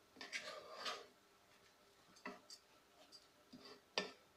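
Wooden spatula stirring soaked basmati rice in a pan: a soft scrape and rustle of grains in the first second, then scattered light taps of the spatula on the pan, the sharpest near the end.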